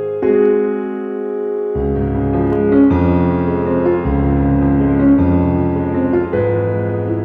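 Background piano music: sustained chords changing about once a second, with low bass notes coming in a little under two seconds in.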